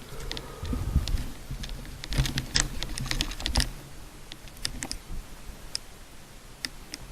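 Irregular light clicks and taps, thickest between about two and four seconds in, over a low rumble that fades out partway through.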